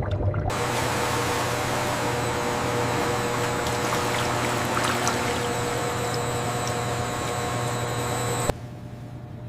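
Steady rush of running water over a machine hum, as from factory processing equipment. It starts abruptly about half a second in and cuts off sharply about a second before the end, leaving a quieter hum.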